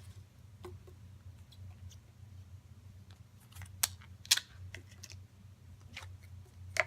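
Slime being handled: a few sharp clicks and crackly pops, loudest about four seconds in and again near the end, over a steady low hum.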